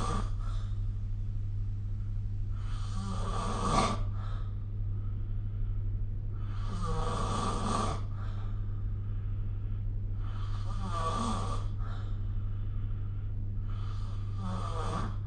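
A sleeping person snoring, a snore about every four seconds, each lasting a little over a second, over a steady low hum.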